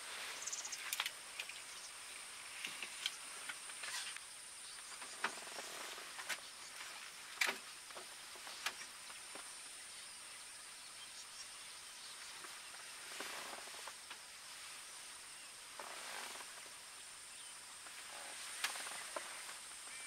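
Faint outdoor ambience: a thin, steady high-pitched whine with scattered sharp clicks and a few soft rustling swells.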